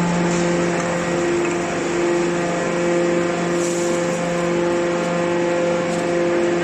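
Hydraulic can shearing baler running: a steady machine hum with a constant low drone.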